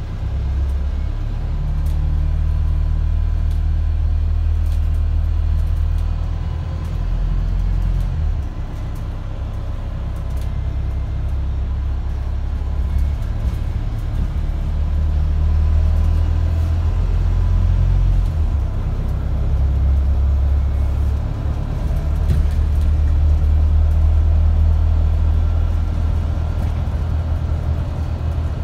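Wright StreetDeck double-decker bus's engine heard from inside on the upper deck: a loud low drone with road rumble, rising and falling in steps several times as the bus accelerates and changes gear under hard throttle.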